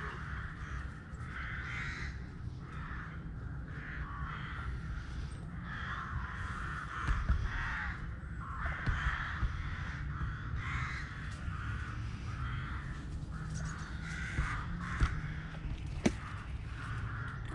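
Crows cawing over and over in short, harsh calls, over a steady low rumble, with one sharp click near the end.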